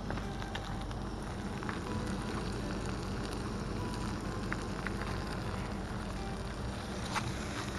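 Flour-coated fish pieces sizzling steadily in butter in a frying pan, with a few light clicks scattered through.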